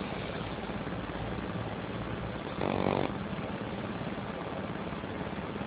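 A man sleeping and snoring, with one short, louder pitched snore about halfway through, over steady hiss from a low-quality phone microphone.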